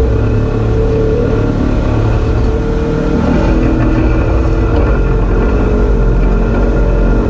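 Side-by-side UTV engine running steadily under way on a dirt trail, with a heavy low rumble.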